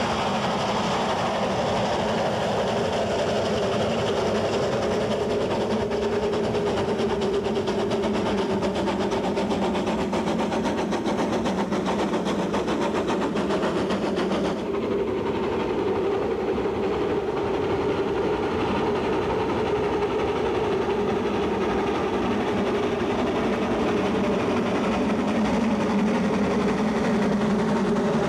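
Steam locomotive working its train slowly up a steep grade, a steady dense running sound with no pauses. About halfway through, the sound abruptly loses some of its high-pitched hiss.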